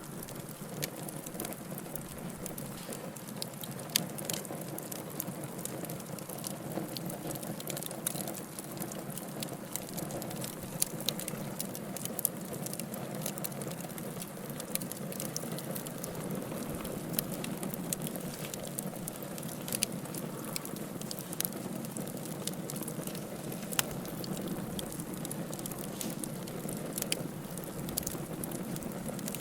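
Wood fire in a fireplace crackling steadily, with frequent irregular pops and snaps over a low steady rush of the flames.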